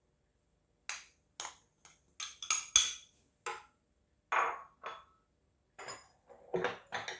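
Metal spoon scraping and tapping against a small ceramic bowl as ground sesame seeds are knocked out of it, then clinking and scraping on a glazed terracotta dish as the seeds are stirred into the oil. The sounds come as a string of short, separate clinks and knocks, some with a brief high ring, the loudest about three seconds in.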